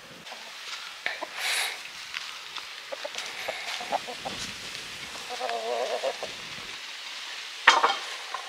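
Chicken clucking, with a longer call about five seconds in and a sudden loud sound near the end.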